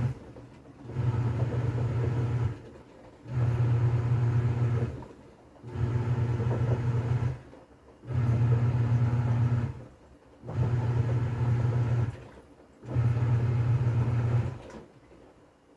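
TCL 7.5 kg top-load washing machine agitating in its wash cycle: the motor hums in six bursts of about a second and a half, with short pauses between them, and stops near the end.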